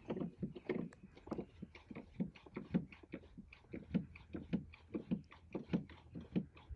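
Jeep Wrangler JL driver's seat height lever being pumped over and over, a rapid run of faint clicks about three a second, ratcheting the seat up to its highest position.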